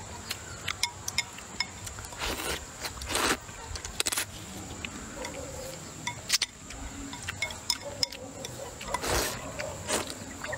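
Sweet potato vermicelli noodles slurped up in three short noisy rushes, with wet chewing and lip-smacking clicks in between.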